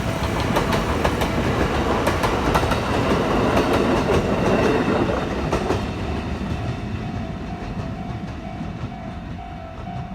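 Electric train passing over a level crossing, its wheels clacking over the rail joints. The train noise swells to a peak about halfway and then fades, leaving the crossing's warning bell ringing in quick, evenly repeated dings.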